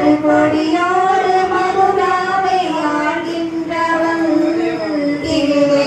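An elderly woman singing a slow Tamil devotional song solo into a microphone, drawing out long held notes.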